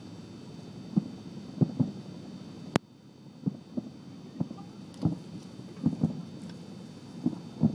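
Distant fireworks booming across open water: dull, muffled thumps at irregular intervals, sometimes two in quick succession. There is one sharp click about a third of the way in.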